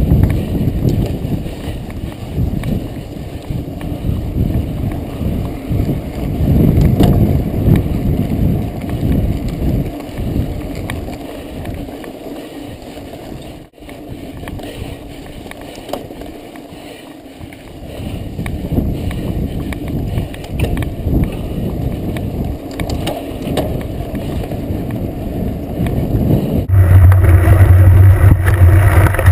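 Mountain bike ridden over a sandy dirt track, heard through a handlebar-mounted action camera: rough, uneven wind rumble and rattling from the bike and tyres on the ground. Near the end it switches suddenly to a louder, steady low drone from a camera mounted close to a knobby tyre.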